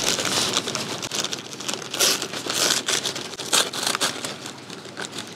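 Brown kraft paper and a clear plastic bag crinkling and rustling as they are pulled open by hand, in uneven louder bursts of crackle.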